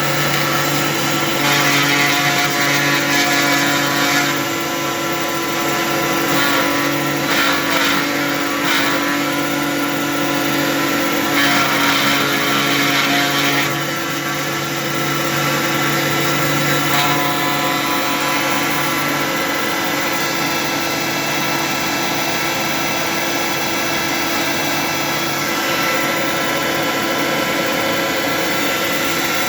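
Motor-driven dust-extraction vacuum and small desktop CNC router running together: a steady motor hum under a hiss, with three louder, harsher stretches about two, seven and eleven seconds in.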